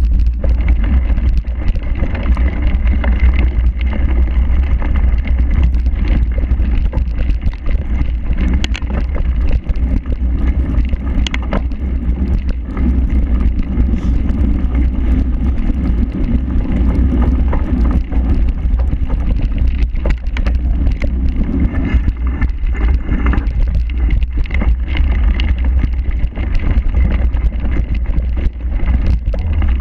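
Cyclocross bike ridden hard over a rough grass and dirt course: constant wind rumble on the bike-mounted camera's microphone, over tyre noise and rattling, with scattered sharp knocks from bumps.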